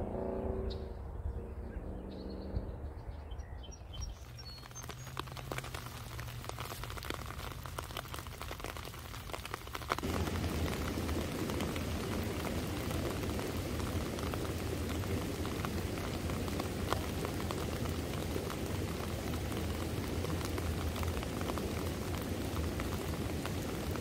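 Steady rain patter with fine crackling drops. It starts faint and jumps abruptly louder about ten seconds in, then holds steady.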